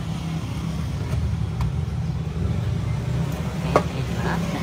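Steady low mechanical rumble, with a few light clicks of small parts and tools on the work table; the sharpest click comes near the end as a part is set down in a metal tin lid.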